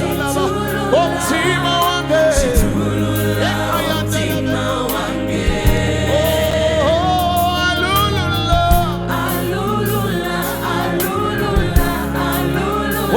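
Live gospel worship music: backing singers singing together over a band, with steady low bass notes and a few sharp drum hits.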